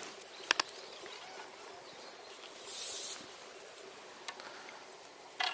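Fishing tackle being handled while a float rig's depth is adjusted: a few light clicks and a brief rustle over a steady background hiss.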